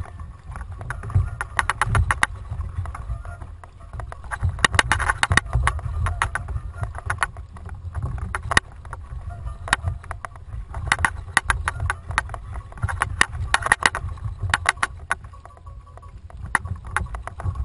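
Kayak on open sea: wind rumbling on the microphone and water washing against the hull, with bursts of rapid clicking every couple of seconds.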